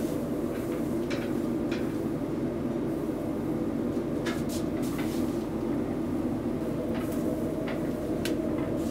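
A steady low drone throughout, with a few short crisp crackles and rustles of gloved hands handling lavash and vegetables as a wrap is assembled and rolled.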